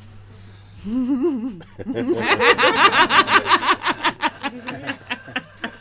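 A person laughing: a short wavering vocal sound about a second in, then a long run of quick laughing pulses that fades near the end.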